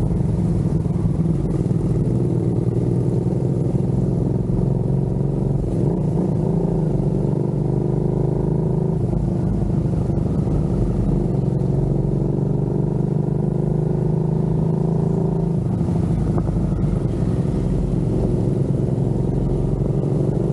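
Cruiser motorcycle engine running as the bike rides along at road speed, its pitch drifting slowly up and down with the throttle.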